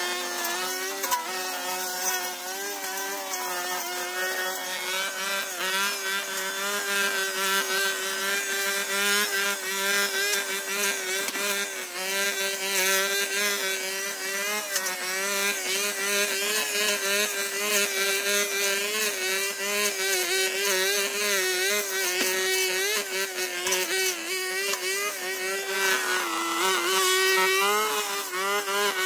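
Petrol brush cutter running at high speed while cutting grass and ferns. Its engine note wavers slightly under load and dips briefly near the end before picking up again.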